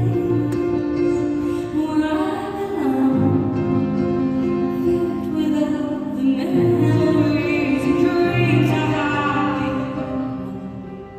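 A woman singing a slow, tender piano ballad live in a large arena, her voice over sustained grand piano chords; the music grows quieter near the end.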